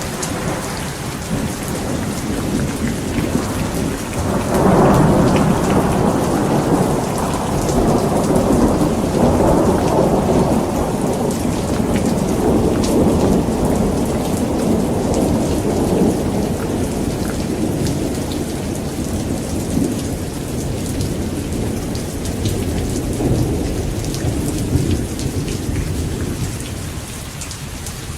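Heavy rain falling steadily, with a long roll of strong thunder that swells about four seconds in, rumbles on, and slowly dies away over some twenty seconds.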